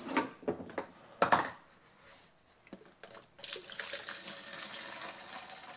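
A few knocks as the chainsaw is handled. Then, from about three and a half seconds in, a steady stream of gasoline pours from the Stihl chainsaw's fuel tank into a plastic tub. It is the straight gas used to flush tar-like old-fuel residue out of the tank, and it comes out dirty.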